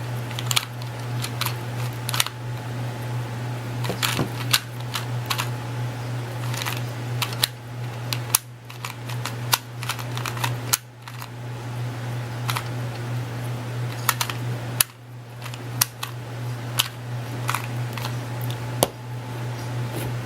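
Plastic 2x2x2 speed cube being twisted rapidly by hand while it is solved, its layers clicking in quick irregular clusters. A steady low hum runs underneath.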